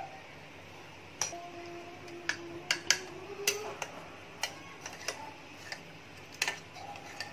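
A metal spoon clinking lightly against a small dish, about a dozen irregular clicks, as yeast is mixed into lukewarm water.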